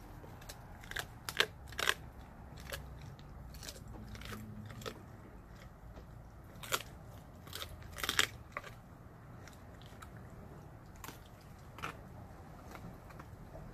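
Blue Bay Shepherd chewing raw food, with irregular sharp crunches. They come in clusters about a second in, around eight seconds in, and once more near the end.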